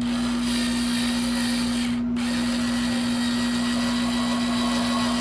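Power drill running as it drives a screw into wood, in two runs with a brief stop about two seconds in, over a steady hum.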